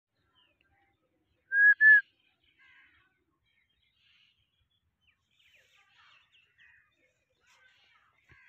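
A person whistling two short, loud notes at a steady high pitch, back to back about a second and a half in. Faint bird chirps follow.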